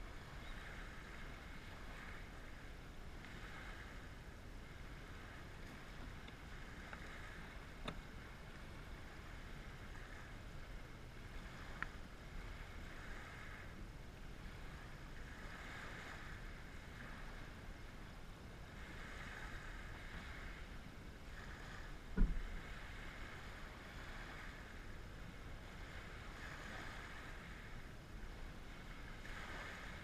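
Small waves washing onto a pebble shore, swelling every few seconds, over a low wind rumble on the microphone. A single short low thump about twenty-two seconds in.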